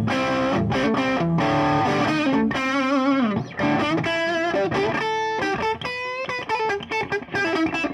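Electric guitar fitted with Stonewall Slutty Wolf H90 pickups (humbucker-sized P90s), played on a semi-hollow body: chords at first, then held single notes with a wavering vibrato.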